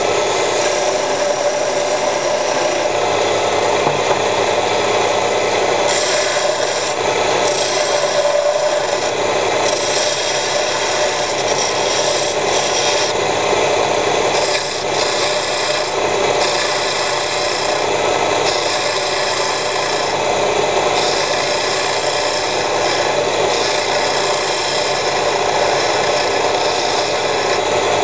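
Homemade belt-driven mini wood lathe running with a steady hum while a small hand tool scrapes the spinning wooden workpiece. The hiss of the cut comes and goes in repeated passes every second or few seconds.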